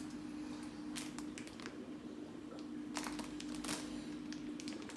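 Faint, scattered crinkles of a plastic fish-shipping bag being handled, over a steady hum.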